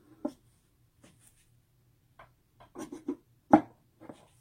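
Clicks and knocks of a wagon wheel being slid onto its axle and its retaining clip handled, about six short sharp sounds with the loudest knock about three and a half seconds in.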